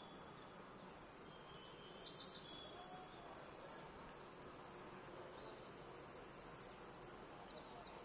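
Near silence: faint outdoor background hiss, with a brief faint high chirp about two seconds in.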